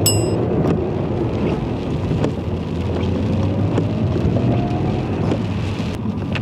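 Inside the cabin of a BMW E39 525i on the move: steady engine and road rumble from its inline-six, with the engine note rising gently about halfway through. A short bell chime rings right at the start.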